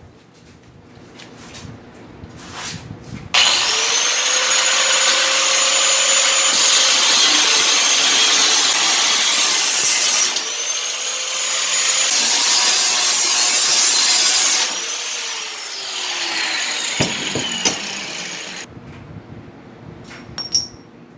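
Angle grinder with a thin cut-off wheel cutting through steel plate. The motor whines up to speed about three seconds in and runs loud and steady through the cut. It stops briefly about ten seconds in and spins up again, then winds down with a falling whine from about fifteen seconds. A few light metal clinks come before the cut starts.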